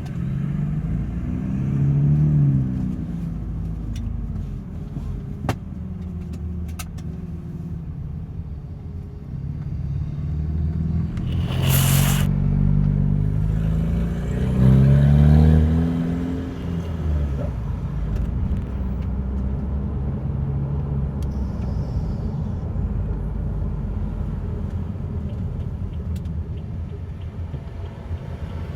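BMW N20 2.0-litre turbocharged four-cylinder engine, fitted with an open aftermarket intake, pulling through several accelerations, its note rising and falling with the gear changes and settling to a steady drone in the second half. A short, loud hiss about twelve seconds in.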